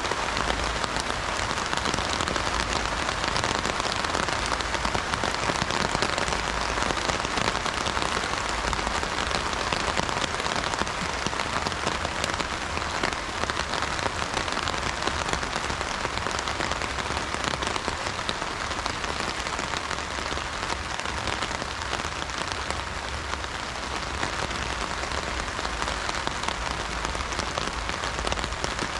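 Steady heavy rain drumming on an umbrella canopy: a dense, even patter of drops.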